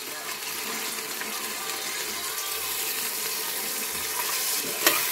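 Chopped onions browning in hot oil in a steel pot, with a steady sizzling hiss. A sharp click comes near the end.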